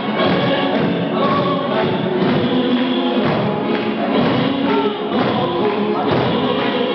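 Music with many voices singing together over a steady beat, the crowd singing and clapping along.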